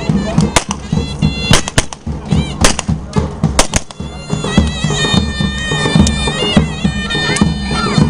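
Davul and zurna playing a folk dance tune: the zurna's shrill reedy melody, with wavering held notes from about four seconds in, over steady davul drum beats.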